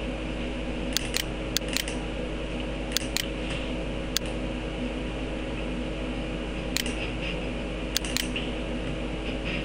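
Computer mouse clicks, several in quick pairs like double-clicks, over a steady electrical hum and hiss.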